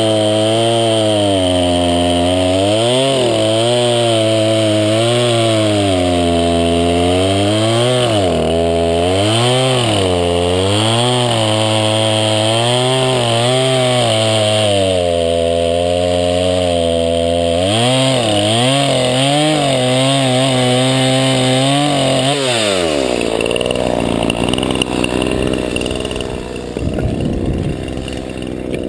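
Craftsman 20-inch 50cc two-stroke chainsaw cutting through a log, its revs dipping and recovering every second or two as the chain bites. About 23 seconds in the revs drop off sharply and the saw falls back to a rough idle.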